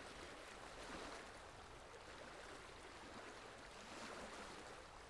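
Faint ocean waves washing on a beach, a soft, steady rushing.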